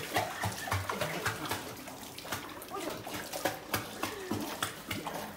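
Small dogs paddling in a hydrotherapy pool, the water splashing and sloshing in irregular quick splashes.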